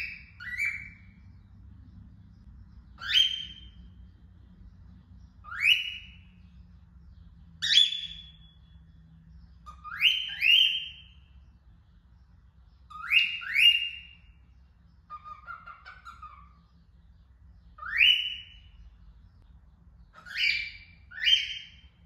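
Female cockatiel calling: short, loud whistled calls that sweep upward in pitch, given singly or in quick pairs every two to three seconds, with a softer, lower warble about two-thirds of the way through.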